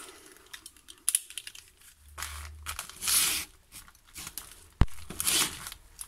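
Utility knife slicing open a padded paper mailer: paper tearing and crinkling in short spells, with a sharp knock a little before the end.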